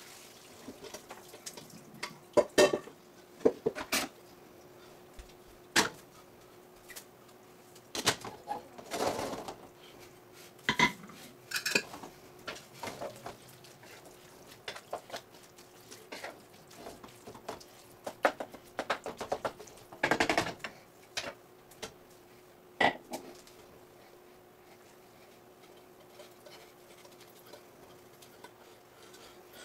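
Cookware clattering on a stovetop: scattered knocks, scrapes and clinks of pots, pans, lids and a wooden spoon stirring in a frying pan, with a denser run of clatter about twenty seconds in. A faint steady hum runs underneath.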